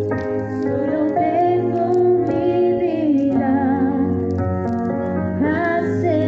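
Music: a woman singing a slow melody with held, wavering notes over a steady low accompaniment.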